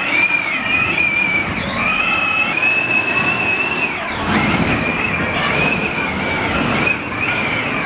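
Storm wind forcing through the gaps around closed glass doors: a high, wavering whistle over a rough, steady rush of wind.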